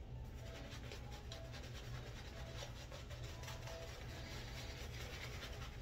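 Synthetic-bristle shaving brush working shaving-soap lather over the face: a rapid, steady run of soft wet brushing and squishing strokes.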